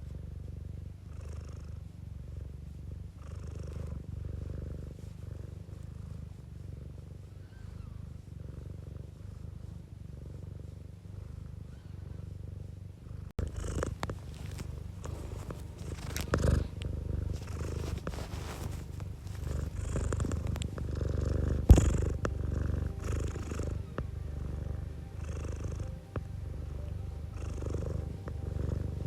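Domestic cat purring close to the microphone, the purr swelling and easing with each breath in and out. About halfway through it grows louder and brighter, with a few sharp clicks, the loudest about three-quarters of the way through.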